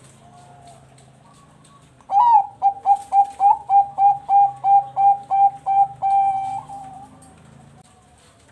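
Zebra dove (perkutut bangkok) singing. A faint soft coo comes first. About two seconds in, a loud fast run of about a dozen staccato coos follows, roughly three a second, ending in a longer drawn-out note.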